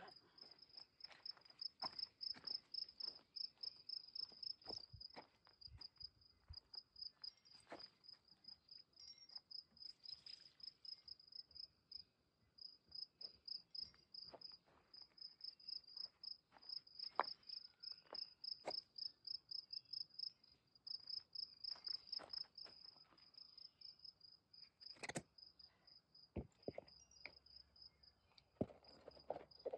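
Insects chirping steadily outdoors: a fast, even pulsing at one high pitch that runs on without a break. Scattered clicks and knocks sound over it, one louder knock near the end.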